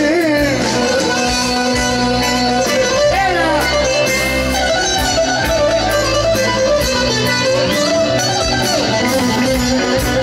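Live Greek popular-music band playing an instrumental passage between sung verses: a plucked-string lead melody over keyboards, bass and drums, with no singing.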